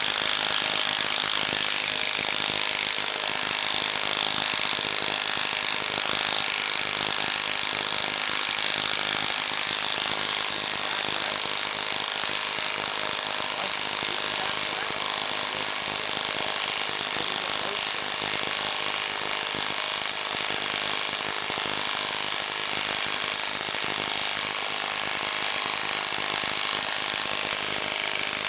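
Milwaukee M12 Stubby 1/2-inch cordless impact wrench hammering without a break as it drives a 10-inch lag screw into a wood log. This is a heavy, long drive for a 12-volt tool, and the lag sinks slowly.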